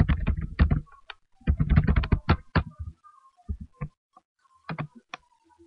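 Typing on a computer keyboard: two quick runs of keystrokes, then a few single clicks spaced apart.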